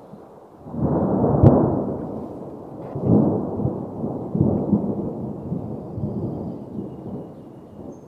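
Thunder: a deep rumble builds suddenly, breaks into a sharp crack about a second and a half in, then rolls on in further waves and slowly fades.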